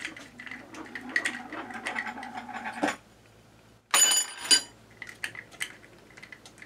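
Light clicks and rattles of a MagnetoSpeed Sporter chronograph's bayonet and strap being handled and fiddled with, broken by a brief silent gap about three seconds in and followed by one short, sharp rattle.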